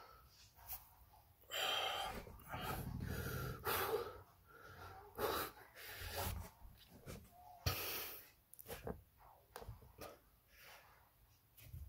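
A man breathing hard with exertion while holding an ab exercise: a string of short, forceful exhales and strained breaths, the longest and loudest about two to four seconds in.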